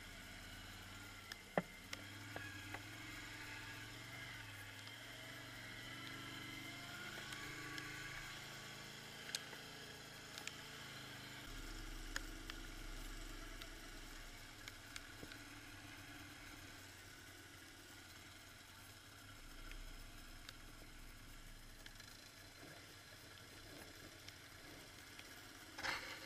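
Quad bike (ATV) engine running at low speed on a muddy track, its pitch rising and falling as the throttle changes, with scattered sharp clicks and a brief louder rush of noise near the end.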